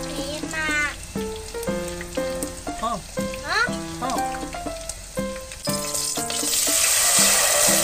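Battered pork strips deep-frying in hot oil in a pot, a steady sizzle under background music. About six seconds in, a louder, harsher sizzle starts as red sweet-and-sour sauce is poured into the hot pot.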